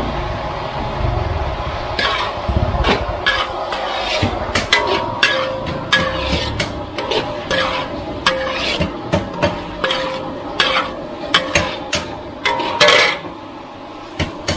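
A metal ladle scraping and knocking against a metal wok while stir-frying pork skin and sliced fish cake, each stroke leaving a short metallic ring. The strokes start about two seconds in, come irregularly about once or twice a second, and the loudest scrape falls near the end, over a low rumble.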